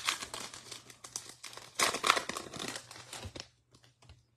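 A foil trading-card pack being torn open, its wrapper crinkling, loudest about two seconds in. The crinkling stops about three and a half seconds in, leaving a few faint clicks as the cards are handled.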